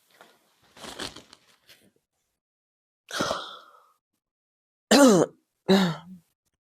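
A person's breathy exhalation, then two short low grunts, the first falling in pitch and the second held briefly on one note.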